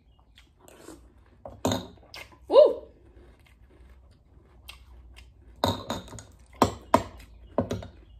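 Someone eating cereal: a metal spoon clinking and scraping against a ceramic bowl, with chewing between mouthfuls. The clinks come scattered at first and bunch together in the second half.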